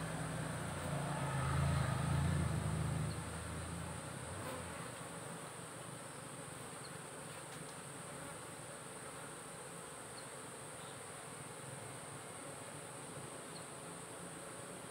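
Steady buzzing of an Asian honeybee (Apis cerana) colony around an opened hive box. A louder low rumble runs under it for the first three seconds or so.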